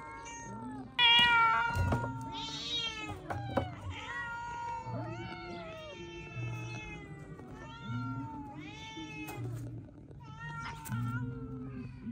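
Cats meowing over and over, calls at different pitches overlapping one another; the loudest comes about a second in.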